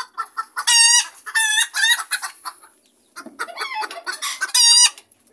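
Bantam chickens giving loud, drawn-out squawking calls, about five of them with short clucks in between and a brief lull in the middle. This is the egg alarm that, as the keeper puts it, the birds raise when a hen has just laid.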